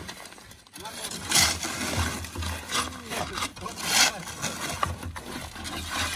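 Shovels scraping and digging into loose soil on a pickup's load bed, in irregular strokes about one a second, as the earth is thrown off onto the road.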